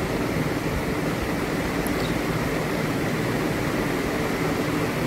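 Sliced eggplant frying in hot oil in a pan, a steady sizzle.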